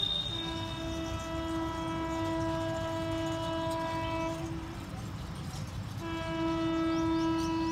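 Vande Bharat Express (Train 18) sounding its horn as it approaches: two long, steady single-pitched blasts, the first about four seconds long, the second starting about a second after it ends and still sounding at the end, over a low rumble.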